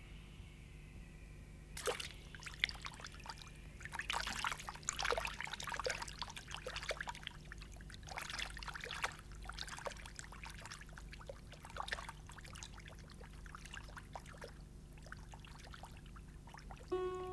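Water trickling and splashing unevenly, with many small sharp drips and spatters. Plucked-string music comes in right at the end.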